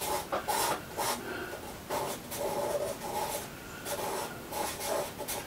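Charcoal pencil scratching on sketch-pad paper in a run of short, quick shading strokes.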